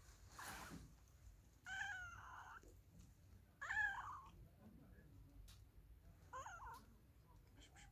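A domestic cat meowing three times, a couple of seconds apart; the middle meow is the loudest and the last is the shortest.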